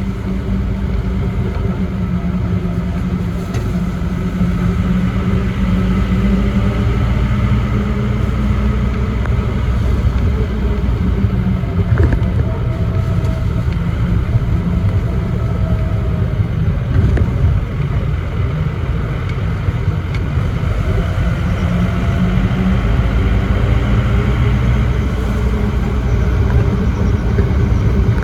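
A motor vehicle running steadily on a road, with a constant low engine hum and road rumble. There is a brief knock about twelve seconds in.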